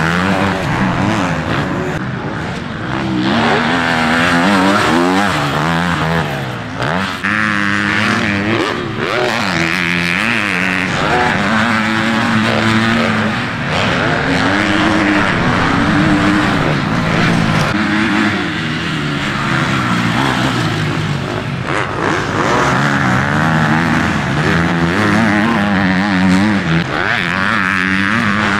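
Motocross bike engines racing on the track, revving up and down, their pitch rising and falling every second or two with throttle and gear changes.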